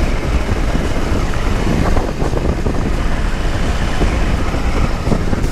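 Motorcycle engine running steadily at road speed, mixed with wind rushing over the microphone.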